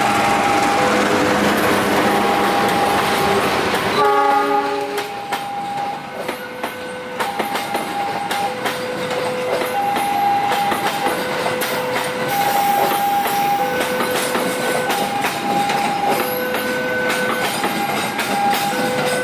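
KAI diesel locomotive hauling a passenger train past at close range: loud running for the first few seconds and a short horn blast about four seconds in, then the coaches roll by with a steady rumble and clickety-clack over the rail joints. Throughout, a two-tone electronic warning signal keeps alternating between a high and a low note.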